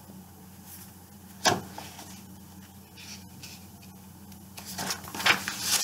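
Paper picture book being handled and its pages turned: one sharp knock about a second and a half in, then a quick series of paper rustles near the end. A faint steady low hum runs underneath.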